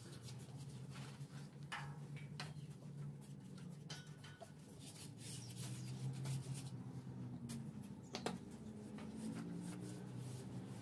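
Paintbrush strokes on a steel gate: soft, scratchy bristle rubbing with scattered light taps of the brush against the metal bars, one sharper tap about eight seconds in, over a low steady hum.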